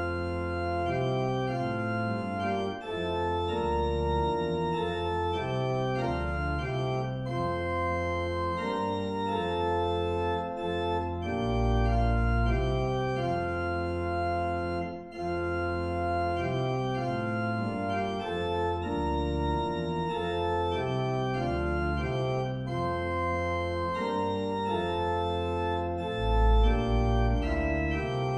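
Organ playing a hymn tune in slow held chords over a deep bass line.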